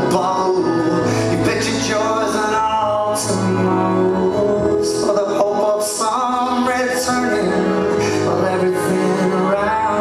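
Live band music: a man singing long held notes over a strummed acoustic guitar, with electric guitar and drums.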